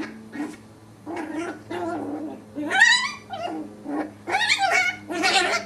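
Puppies play-fighting, giving a string of short growls and yips, with one high squeal rising and falling about three seconds in. A faint low hum runs steadily underneath.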